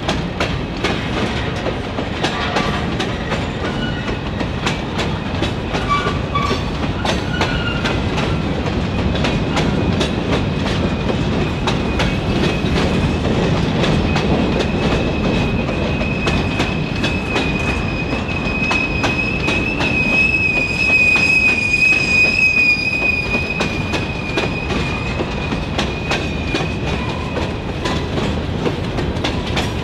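Freight cars rolling past with a steady rumble and the clicking of wheels over rail joints. A high, drawn-out wheel squeal sets in about halfway through, is loudest about two-thirds of the way in, then fades.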